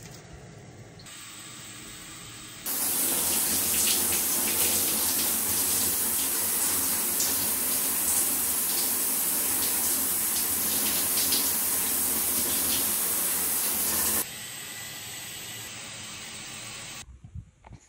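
Water running from a tap, a steady splashing rush that starts abruptly a few seconds in and cuts off abruptly near the end.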